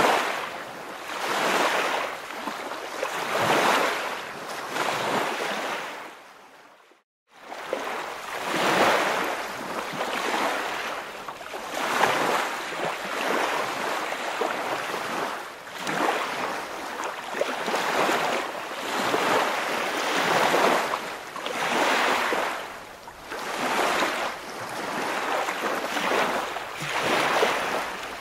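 Waves washing in and out, swelling and fading every two seconds or so, with a brief drop to silence about seven seconds in.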